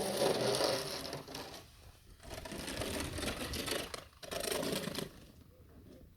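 Snow shovel scraping and pushing snow over a hard surface, in three strokes: two long ones and a shorter one.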